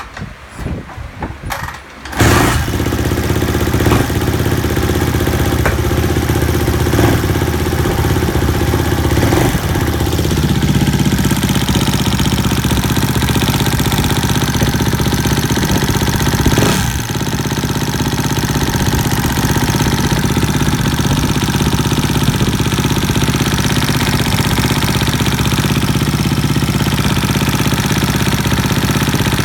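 2012 Suzuki RM-Z250 single-cylinder four-stroke engine firing up about two seconds in after a few knocks, then idling steadily with the ticking noise its owner is showing. The idle note shifts about ten seconds in.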